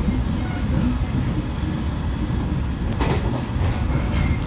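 415 series electric train running on the line, a steady rumble of wheels on rails, with a sharp clack from the rail joints about three seconds in.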